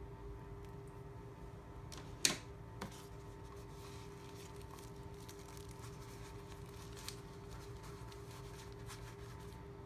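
Hands handling a coiled lavalier microphone cable and a soft drawstring pouch: faint rustling, with one sharp rustle-click a couple of seconds in and a smaller one just after, over a steady hum.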